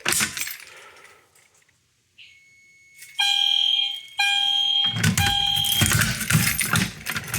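EST Genesis fire alarm horn sounding a few short blasts of a steady tone, each about a second long, as the walk test with audible signals a tripped device. Loud rattling and handling noise follow from about five seconds in.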